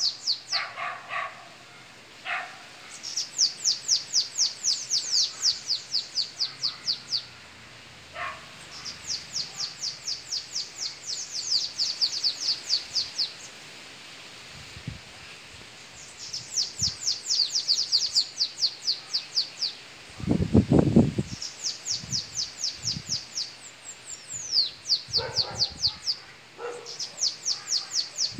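Caged bananaquits singing: phrase after phrase of rapid, high, thin, sibilant notes, each phrase lasting a few seconds with short pauses between, as in a song duel. A brief loud low rumble cuts in about two-thirds of the way through.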